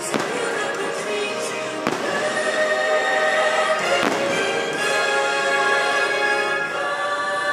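Fireworks bursting over loud show music: three sharp booms, at the start, about two seconds in and about four seconds in, each with a trailing rumble, while the music plays on steadily.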